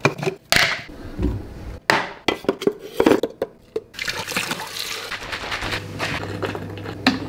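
A plastic powder canister being handled and opened, with a series of clicks and knocks. About four seconds in, a kitchen faucet lever is turned on and water runs.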